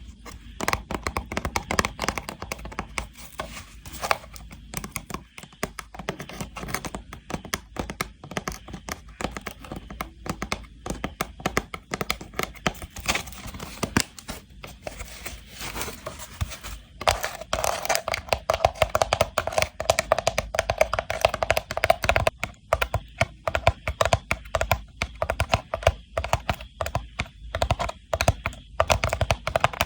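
Rattan box being tapped and scratched, a dense run of quick, irregular taps and clicks, with a few seconds of steadier rubbing about halfway through.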